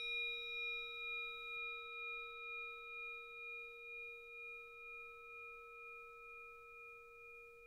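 A Tibetan bell-metal instrument rings on after a single strike: a clear tone with bright overtones, fading slowly and wavering about twice a second.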